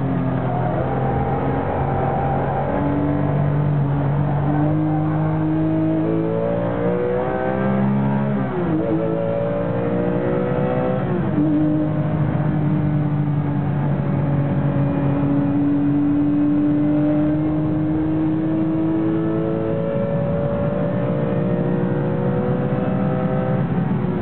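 Porsche 996 GT3 RS race car's flat-six engine heard from inside the cabin while being driven on track, its pitch climbing and falling with the throttle and gear changes. There are sharp drops in pitch about eight and eleven seconds in, then a long steady climb.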